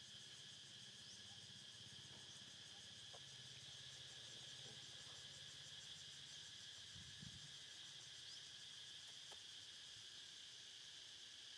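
Faint insect chorus: a high, even, steady buzz.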